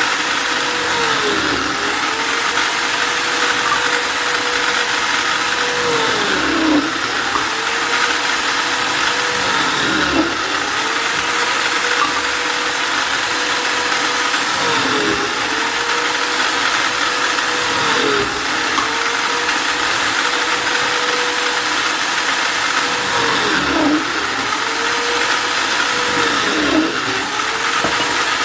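Electric drill running continuously over a steady hiss, its motor pitch briefly dropping and climbing back every few seconds, about seven times.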